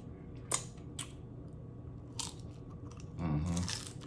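Loaded nachos eaten close to the microphone: a few sharp crunches of tortilla chips being bitten and chewed. Near the end there is a short low "mm" from the eater.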